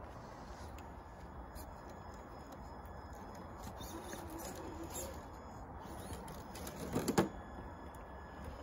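Faint whir of an RC crawler's electric motor and drivetrain at crawling speed, with a short cluster of scraping knocks about seven seconds in as the truck works over rock and moss.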